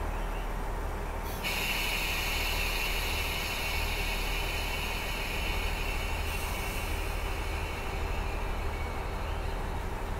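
Air brakes of a KiHa 47 diesel railcar releasing, a loud hiss of escaping air that starts suddenly about a second and a half in, thins after about five seconds and fades near the end. Under it the railcar's Cummins DMF14HZ diesel engine idles steadily.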